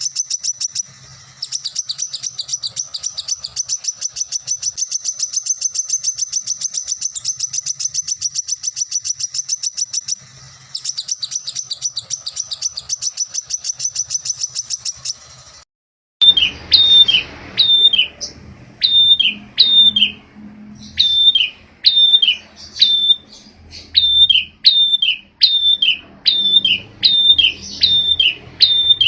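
Recorded songbird masteran: first a fast, high, continuous trill that runs on for long stretches with a couple of short breaks. After a brief cut, a different bird gives loud downward-slurred whistled calls in clusters of two or three, about one cluster a second, over a faint low background rumble.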